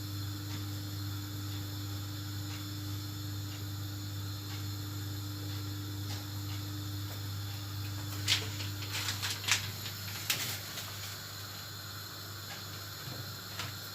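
Kitchen work during lasagna assembly: a steady low hum with a faint hiss. A short run of sharp clicks and knocks comes about eight seconds in and lasts two or three seconds.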